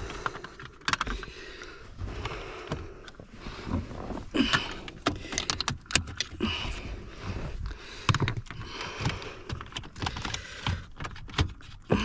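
Hand tools clicking, scraping and tapping against small metal parts of a car's steering column in irregular strikes, with a few louder knocks.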